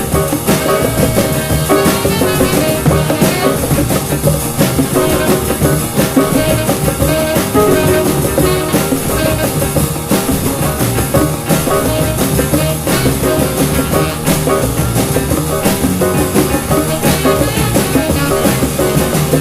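Band music with a drum kit keeping a steady beat under guitar.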